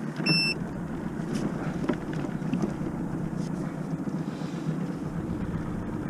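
A boat motor running steadily with a low rumble, and a short high electronic beep about a third of a second in.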